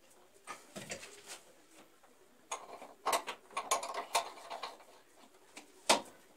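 Irregular clicks and knocks from hand work on plastic water pipes and their wall fittings. A few come about a second in, a dense run follows in the middle, and one sharp click comes near the end.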